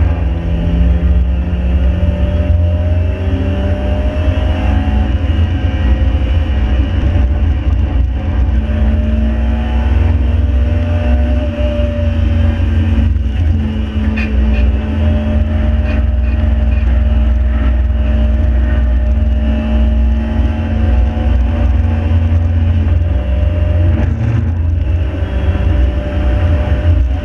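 Mk5 Ford Fiesta's stock 1.7-litre four-cylinder Puma engine, heard from inside the car at sustained speed under a deep, steady rumble. The engine note climbs slowly, holds steady, then drops about 23 seconds in.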